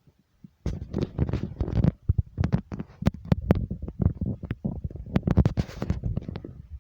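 Earthquake shaking: a deep rumble with many sharp rattles and knocks of loose objects, starting about half a second in, dropping out briefly near two seconds, then dying away just before the end.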